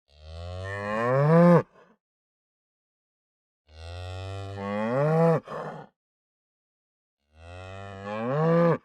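Cow mooing three times, each moo about a second and a half long, starting low and rising in pitch as it grows louder, then cutting off abruptly, with silence between calls.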